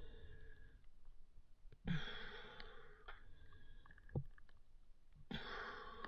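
Freediver breathing hard at the surface after a deep dive, heard close up through the mask-mounted camera: two long, hissing breaths a few seconds apart, with small splashes and knocks of water in between.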